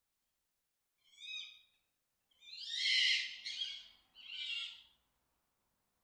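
Fox mating calls: three separate calls, a short one about a second in, then a longer, louder one, and a third shortly after.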